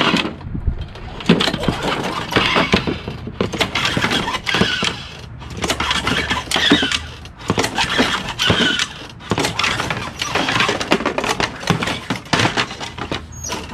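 Craftsman mower's Tecumseh 6.75 engine being cranked over and over by its recoil pull cord, about six pulls in a row, without firing. The cranking swirls gasoline poured into the crankcase to loosen oil sludged thick as paste.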